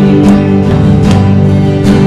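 Acoustic guitar strumming chords as accompaniment to a worship song, between sung lines.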